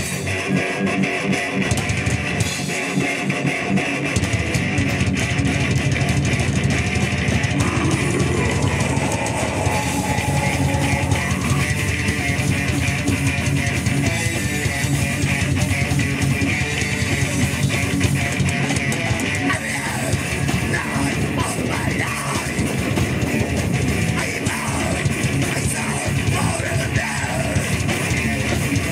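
Live death/thrash metal band playing through a PA: distorted electric guitars, bass guitar and drum kit. The low end of bass and drums comes in fully about four seconds in.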